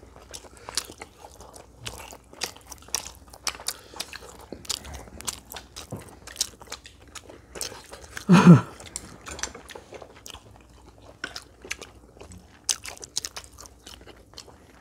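People biting and chewing crispy fried food, fried chicken and battered fried snacks, making many small sharp crunches. A short voice sound about eight seconds in is the loudest moment.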